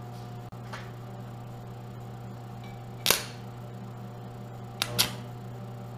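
Steady electrical hum of a Hobart stick welder switched on, with a sharp metallic click about three seconds in and two more close together near the end.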